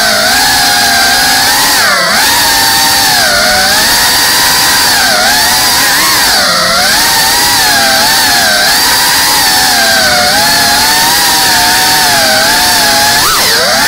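FPV quadcopter's motors and propellers whining loudly, the pitch dipping and climbing again every second or two, with a sharp swoop down and up near the end.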